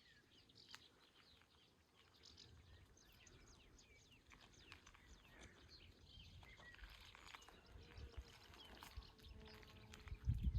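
Faint birdsong, many short high chirps and twitters overlapping. A few low thumps near the end are the loudest sounds.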